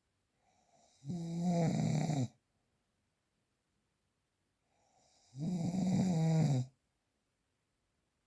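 Snoring: two loud, low-pitched snores about four seconds apart, each lasting just over a second and led in by a faint breath.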